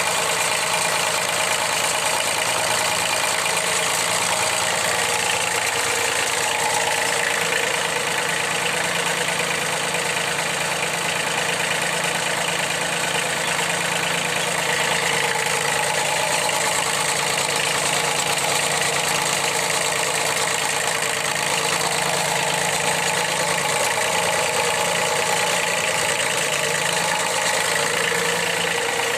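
Kubota engine of a ride-on mower running steadily at idle.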